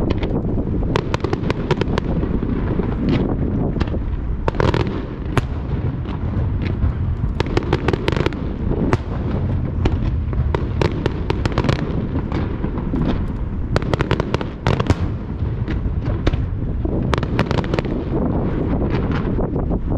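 Fireworks barrage: a continuous low rumble of shell bursts, dense with sharp crackling reports throughout.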